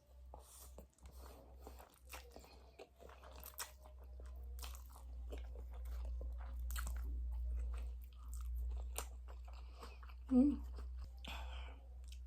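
Close-up eating sounds of spicy noodles being chewed: irregular wet smacks and small clicks of chewing and biting. About ten seconds in, a brief, louder hum from the eater stands out.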